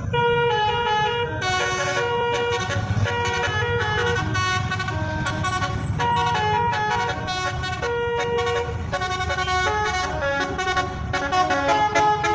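A bus's telolet horn playing a rapid melody of many short notes, changing pitch every fraction of a second, over the low rumble of the bus's engine.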